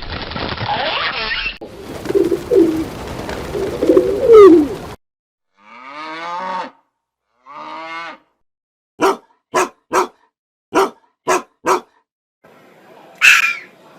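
Different farm animal calls played one after another: low drawn-out calls in the first few seconds, then two long pitched calls, then six short sharp calls in quick succession, and a higher call near the end.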